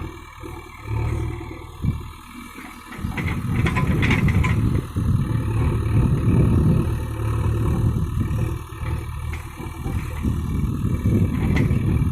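JCB 3DX backhoe loader's diesel engine running, softer for about the first three seconds, then picking up to a heavier, steady run, as under working load. A brief clatter comes around four seconds in.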